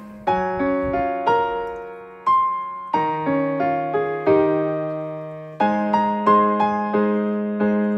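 Background piano music: a slow melody of struck notes and chords, each ringing and fading before the next.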